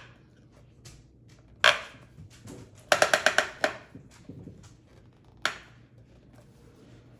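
Hard plastic clicks and knocks from a car door-mirror lens and housing being pressed and moved by hand: a sharp knock, then a quick run of about seven clicks in under a second, then another single knock.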